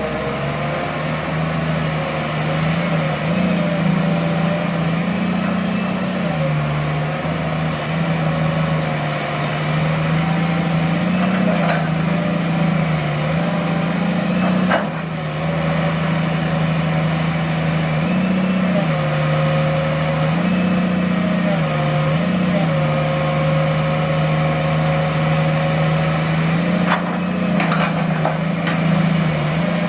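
Sumitomo hydraulic excavator's diesel engine running steadily, its pitch stepping up briefly several times as the hydraulics take load during digging. A few sharp knocks come through, one about halfway and a couple near the end.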